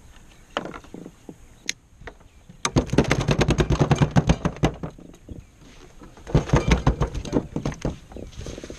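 A freshly caught black drum flopping on a plastic kayak deck: a rapid run of knocks and slaps lasting about two seconds, then a second shorter bout, with a few single taps before.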